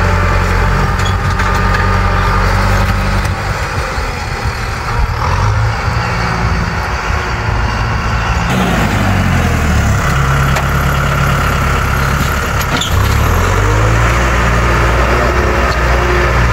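Tractor engine running steadily under load as it pulls a ridging plough through dry soil. The engine note falls about eight and a half seconds in and climbs back up around thirteen seconds.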